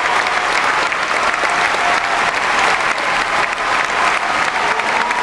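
Large arena crowd applauding steadily, a dense wash of thousands of hand claps with some cheering voices mixed in.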